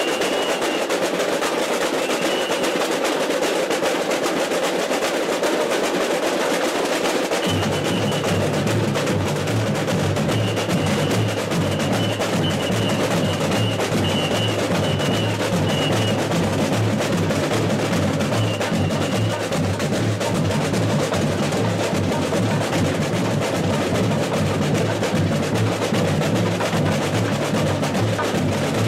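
A samba school bateria playing a continuous samba rhythm on surdo bass drums and snare-type drums. The deep surdo bass joins about seven seconds in and keeps going under the higher drums.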